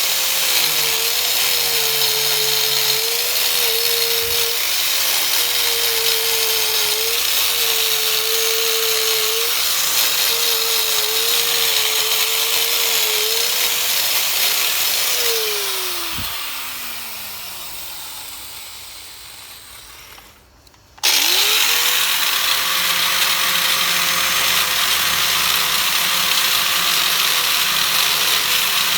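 Angle grinder with a polishing wheel running on aluminium engine cases, its motor pitch dipping slightly as it is pressed into the work. About halfway through it is switched off and winds down, then is switched back on and quickly spins up to full speed again.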